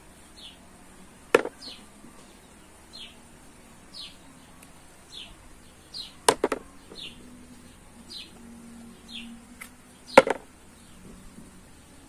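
A bird repeats a short, high, downward-slurred call about once a second. Three sharp clicks are the loudest sounds, about a second in, near the middle (a quick double) and near the end: apricot pits dropping into a plastic bowl.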